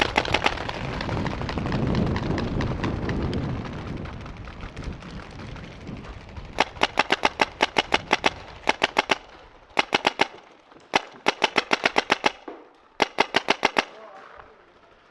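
Paintball marker firing rapid strings of shots, roughly ten a second, in about five bursts with short pauses between them. A low rushing noise swells and fades during the first few seconds.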